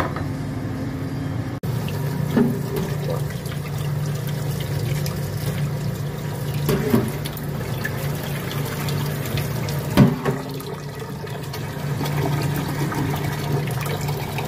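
Tap water running into a stainless-steel pot of Japanese rice in a sink as the rice is washed before cooking. A few short knocks, the loudest about ten seconds in.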